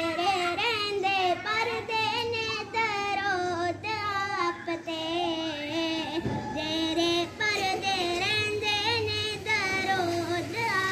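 A child singing a naat, a devotional Urdu poem in praise of the Prophet, solo and without instruments, in a melismatic melody with wavering, ornamented notes.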